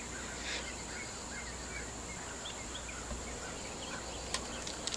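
Small birds chirping here and there, short high chirps, over a steady high-pitched insect drone.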